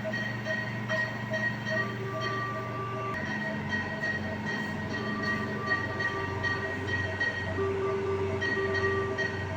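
Neonatal ventilator running in CPAP mode: a steady machine hum with a low pulse a little more than once a second, starting about three seconds in. Steady electronic tones sound over it, starting and stopping a few times.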